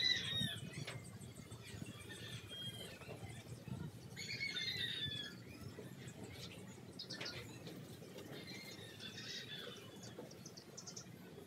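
Birds chirping and calling in short scattered bursts every couple of seconds, the loudest call right at the start.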